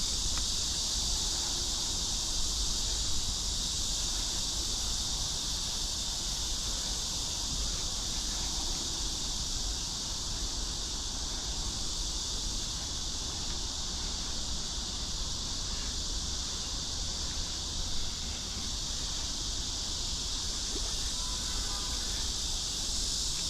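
Steady high-pitched chorus of insects chirring without a break, over a low rumble of wind on the microphone.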